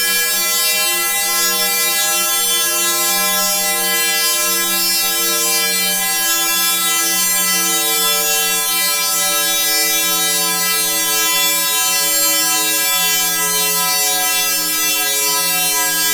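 A sustained synthesized chord sound effect: many steady tones held together at an even loudness, with a shimmering top and some middle notes slowly shifting.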